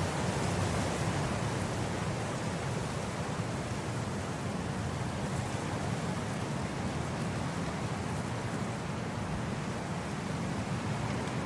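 Wind blowing steadily across grass: an even rushing noise with a low rumble underneath.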